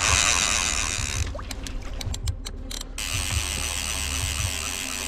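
Saracen fly reel's click-and-pawl check buzzing as the spool spins fast with a salmon just hooked on the fly. It slows to separate clicks about a second and a half in, then buzzes steadily again from about three seconds.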